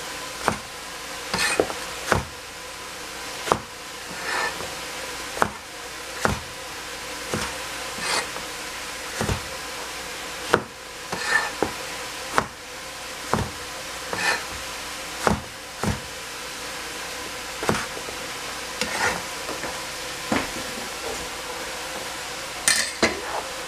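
Cleaver chopping a slender eggplant on a plastic cutting board: sharp knocks of the blade hitting the board at an unhurried pace of about one a second, some with a brief crisp sound of the blade passing through the vegetable.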